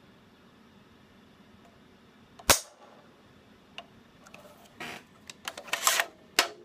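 Dry-fire of an AR-15 with a clear polymer lower receiver: one loud, sharp click as the trigger is pulled and the hammer falls, about two and a half seconds in. It is followed in the last couple of seconds by a quick run of smaller clicks and clacks as the rifle is handled.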